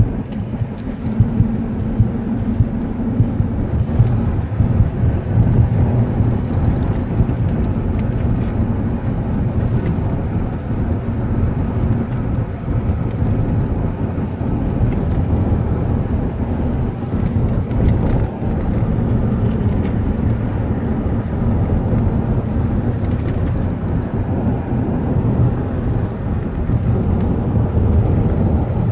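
A car driving along a country road: a steady low rumble of road and wind noise, with a few sharp knocks in the first few seconds.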